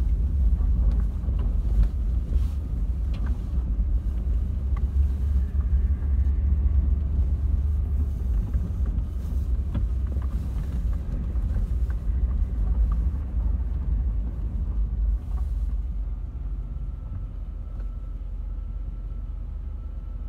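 Car cabin noise while driving slowly over gravel: a steady low rumble with scattered small clicks and pops from stones under the tyres, easing off over the last few seconds as the car slows.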